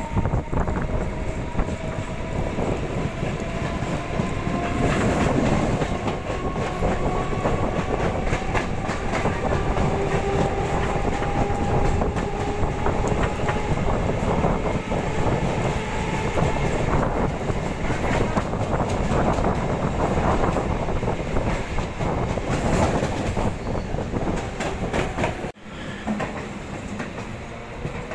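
A train running on the tracks: a loud, steady rattle of wheels clicking over rail joints, with a faint whine that slowly falls in pitch. The sound drops out abruptly about 25 seconds in, then train noise picks up again.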